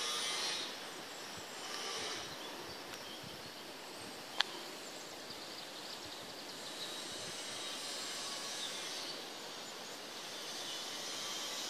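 Outdoor ambient noise: a steady hiss that swells and fades, with one sharp click about four seconds in.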